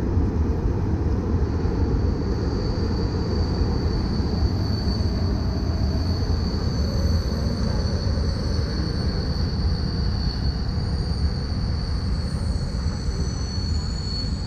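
Freight train running across a railway bridge: a steady heavy rumble, with a thin steady high squeal over it from about a second and a half in.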